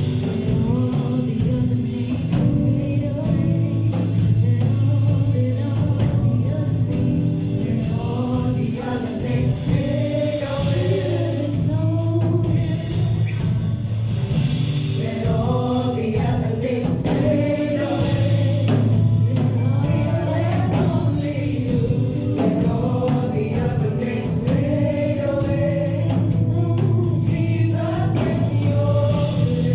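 Choir and worship team singing a gospel worship song with instrumental accompaniment: sustained low notes and a regular beat under the voices.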